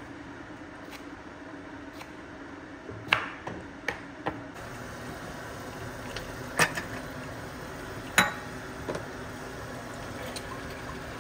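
Cooking utensils knocking and clinking against a metal pot of curry: a handful of sharp, ringing knocks, the loudest about three, six and a half and eight seconds in, over a steady low hum.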